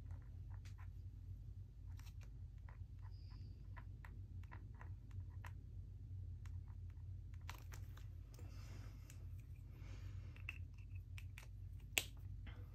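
Pen signing watercolour paper: faint scattered ticks and light scratching over a steady low hum, with one sharper click near the end.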